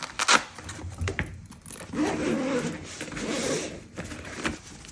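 Unboxing handling: a few sharp clicks and taps as the light's accessories are lifted out, then about two seconds of packaging rustling and sliding.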